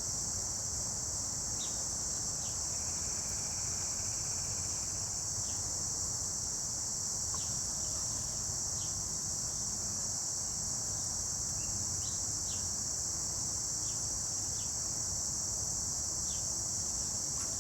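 A steady, high chorus of crickets throughout, with about a dozen short bird chip notes scattered over it.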